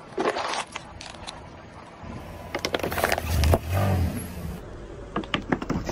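Plastic soda bottles crackling and crunching under a rolling car tyre: a short burst of crackles near the start, then louder, denser crunching through the middle over a low rumble, and a few more cracks near the end.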